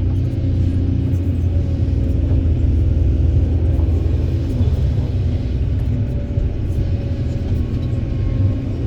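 Heavy diesel engine of construction machinery, an excavator working beside a dump truck, running steadily under load with a deep, even rumble.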